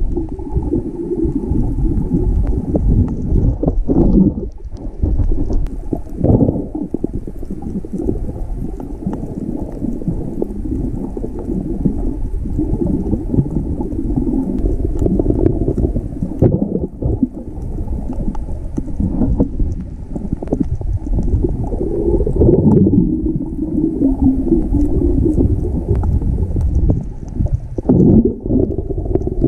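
Muffled underwater rumbling and gurgling of moving water picked up by a camera held underwater, swelling and dipping unevenly.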